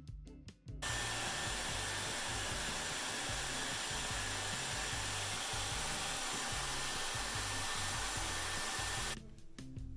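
Dyson Airwrap with its 1.6-inch curling barrel attachment running, blowing air onto a wrapped section of hair. It makes a steady rush of air with a faint high whine. It starts about a second in and cuts off shortly before the end.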